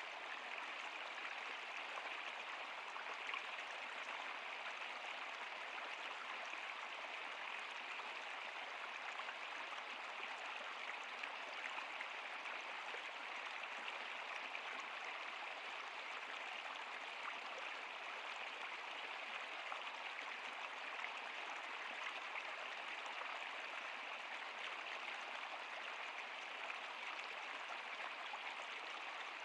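River water flowing steadily: an even, unbroken hiss of running water with fine splashing detail.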